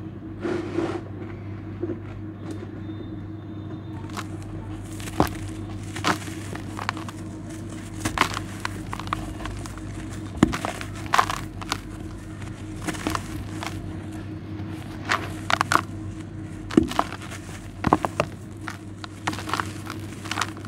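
Damp clumps of charcoal and sand with small white stones crushed and crumbled by hand in a plastic tub, giving irregular crunches that grow more frequent after about four seconds. A steady low hum runs underneath.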